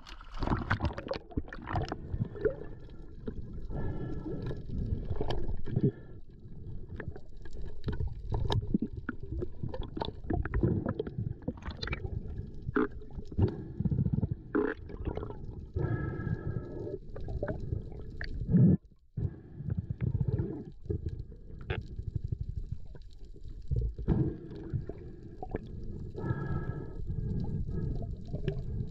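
Muffled underwater noise picked up by a camera in its waterproof housing: a steady low rumble of moving water with many scattered clicks and bubbling gurgles.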